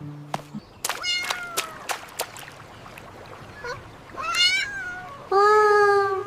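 A cat meows several times. Two falling mews come about a second in, another comes around four seconds, and a long, steady, loud meow comes near the end. A brief low hum sounds at the very start.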